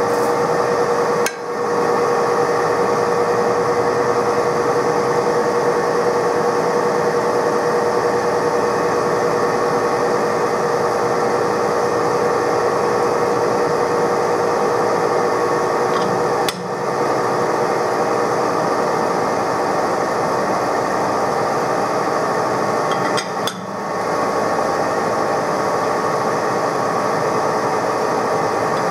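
TOS SN63B lathe running with a steady geared hum from the headstock, the spindle turning but not cutting, as the re-chucked part is checked for runout. The sound breaks off briefly three times.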